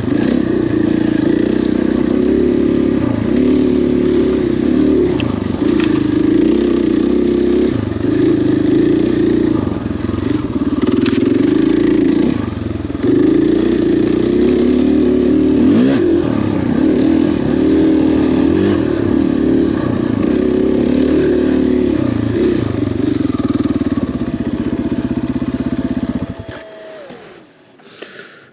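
KTM 500 XCF-W's single-cylinder four-stroke engine running at low trail speed, the throttle opening and closing as the bike picks its way along, with a few sharp knocks. Near the end the engine is switched off and its sound falls away.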